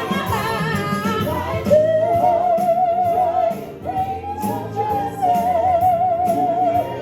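Gospel singing with band accompaniment: a solo singer ad-libs without words, holding two long high notes with wide vibrato over a steady beat.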